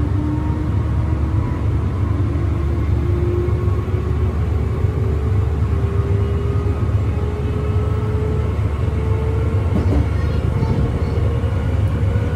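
Electric commuter train running, heard from inside the car: a steady low rumble of wheels on the track, with the traction motor's whine rising slowly in pitch as the train accelerates.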